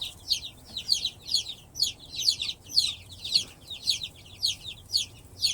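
A brooder full of baby chicks (ISA Browns, Plymouth Rocks and Rhode Island Reds) peeping continuously: many short, high notes, each falling in pitch, overlapping several times a second.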